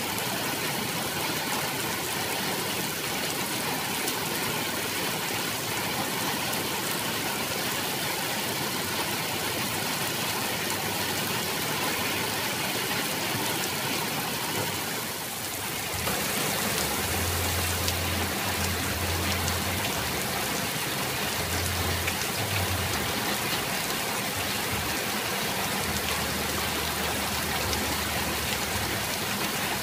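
Steady rain falling, an even hiss. About halfway through it dips for a moment, and after that a low rumble comes and goes underneath the rain.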